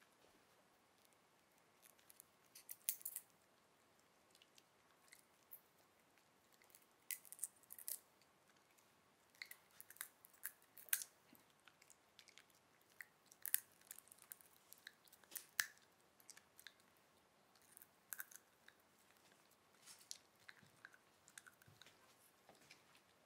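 Italian Greyhound puppy chewing popcorn taken from a hand: faint, irregular crisp crunches with quiet gaps between them.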